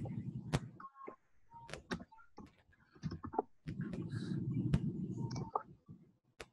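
Computer keyboard keystrokes: a dozen or so separate clicks as a short terminal command is typed and entered. A low rumbling noise comes and goes twice under the clicks.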